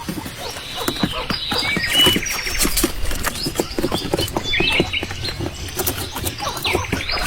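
Female quail calling in short chirps and a quick trill, over constant light pattering clicks.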